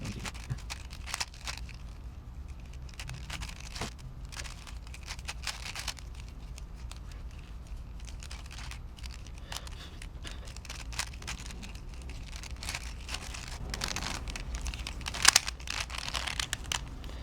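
Plastic layers of a twisted-shape 3x3 Rubik's Cube turned quickly by hand: a steady run of clicks and clacks, with a denser, louder flurry near the end.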